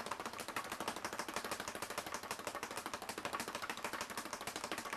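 Speed bag being punched in the fast-punch rhythm, one strike followed by one bounce. It rattles against the wooden rebound board in a steady, rapid stream of sharp knocks.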